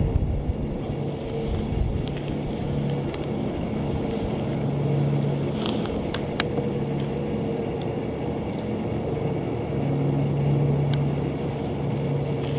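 Steady low rumble with a humming tone that swells twice, once around the middle and again near the end, with a few faint clicks a little past halfway.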